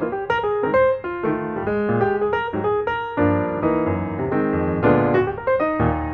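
Background piano music: a quick, busy run of notes.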